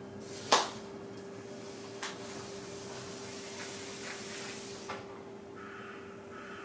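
Charcoal sticks and arms sweeping over a large sheet of paper on the floor: a dry scraping hiss, with a sharp knock about half a second in and two lighter knocks later.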